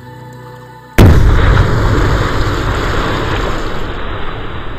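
A loud explosion about a second in: a sudden blast followed by a long, deep rumble that slowly fades.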